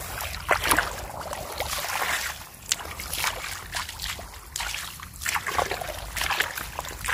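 Bare feet wading through shallow muddy water, with irregular splashes, sloshes and squelches in the mud.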